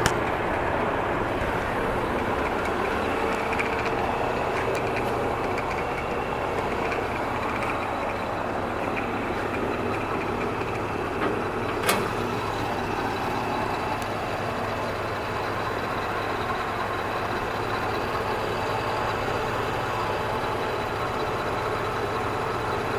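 Enco 16-speed benchtop drill press running steadily, its motor and belt drive giving a constant hum, with two short clicks about eleven and twelve seconds in.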